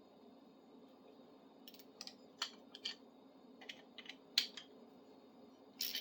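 Small sharp metal clicks and taps from a tubing cutter being tightened and reassembled by hand: about a dozen, irregularly spaced, starting a second and a half or so in, with a quick cluster near the end. A low steady hum runs underneath.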